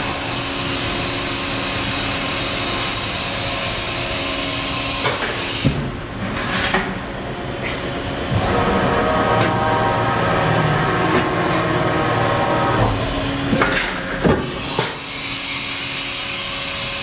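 Powered-up Haas VF-6 CNC vertical machining center running steadily, a hum with a hiss. A higher whine of several tones comes in about halfway and stops a few seconds later, with a few short knocks.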